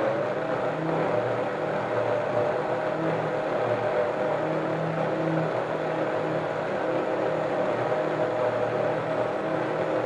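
OmniBlend high-powered blender running, grinding walnuts, sunflower seeds, water and lemon juice into a thick nut milk: a steady motor whine over the churning.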